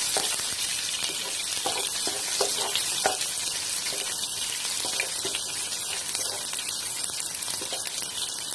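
Chopped onion and sliced garlic sizzling steadily in hot vegetable oil, just after going into the pan, with a few light clicks scattered through.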